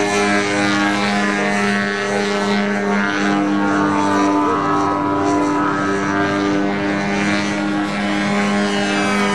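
Engine of a radio-control aerobatic model airplane running steadily in flight, with a faint rise and fall in pitch.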